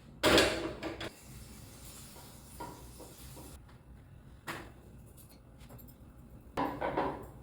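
Kitchen handling noises: two short clattering bursts, one near the start and one near the end, with a small knock between them, like a cupboard or drawer and containers being handled.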